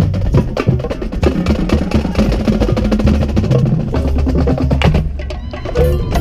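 Marching band playing live, with rapid drum and percussion strokes over sustained low brass tones, heard close up from inside the marching formation. The band eases off briefly near the end before sustained pitched tones come back in.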